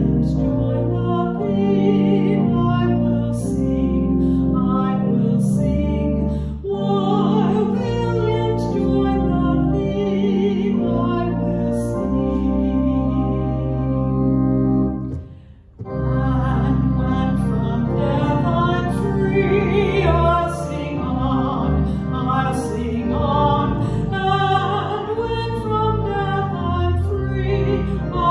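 Hymn singing with instrumental accompaniment, with a brief break in the music about halfway through.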